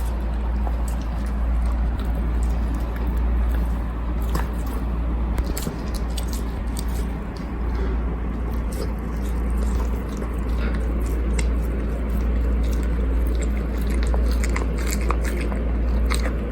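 Spitz dog eating a soft dog birthday cake: irregular wet chewing and biting clicks, over a steady low hum.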